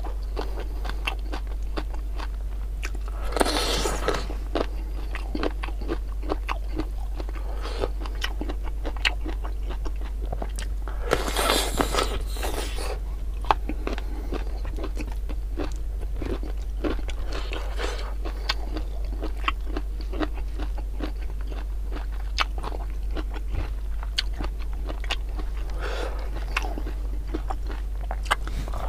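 Close-miked eating: wet chewing with many small mouth clicks while leafy greens and rice are eaten by hand. There are a few louder crunching bites, about three and a half seconds in, around eleven to thirteen seconds, and near twenty-six seconds. A steady low hum sits underneath.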